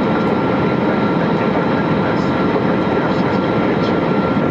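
Steady cabin noise of an Airbus A320neo in flight: a constant rush of airflow and engine noise, with a thin steady whine above it.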